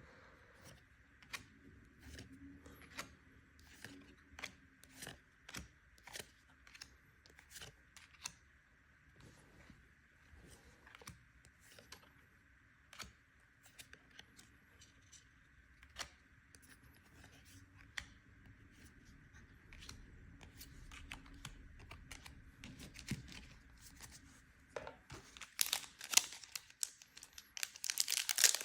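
Trading cards being handled and flipped through one at a time, a string of soft, irregular clicks and snaps of card stock. About twenty-five seconds in, louder crinkling and tearing of a foil booster pack wrapper starts.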